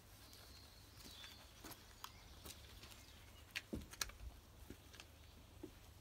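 Near silence: faint outdoor ambience with a few brief, scattered clicks.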